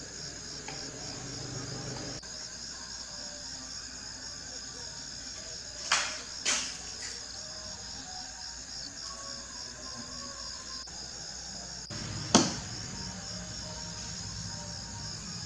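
Steady high insect chirping, typical of a cricket, with three sharp knocks: two about half a second apart around six seconds in, and a louder one near twelve seconds in.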